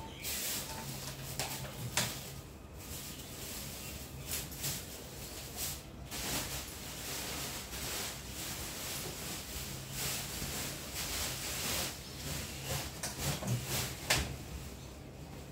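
Handling noise as mono jack cables are plugged into the sockets of a portable amplifier: irregular clicks and knocks, with the rustle of the leads being moved.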